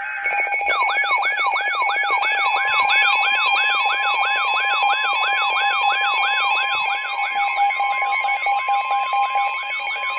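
Weather alert radio sounding its alarm for a severe thunderstorm warning: an electronic siren sweeping about three times a second over steady tones. A steady tone joins about two seconds in, typical of the NOAA Weather Radio warning alarm tone.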